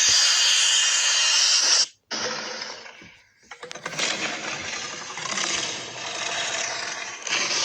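Godzilla roar sound effects played one after another: a screeching roar cuts off sharply about two seconds in, a short roar follows and fades, then a long roar with several swells begins about three and a half seconds in.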